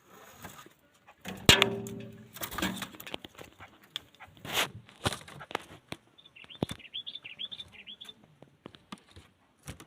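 A bird flapping and thrashing amid loud knocks and rustles of handling, with a quick run of repeated chattering calls a little past the middle.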